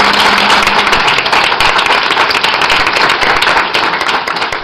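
Audience applauding: dense, loud clapping that begins to die down near the end.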